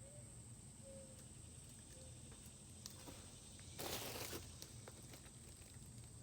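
Quiet background with a faint steady high hiss, broken once about four seconds in by a brief rustling noise.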